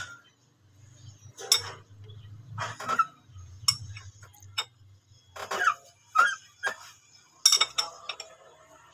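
Metal hand tools clinking and knocking against engine parts: about a dozen separate, irregular strikes.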